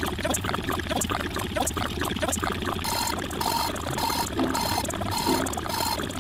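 A dense jumble of many overlapping looped sound-effect clips, one for each digit of a rapidly rising counter, with rapid clicks throughout. A repeating beep joins about halfway through.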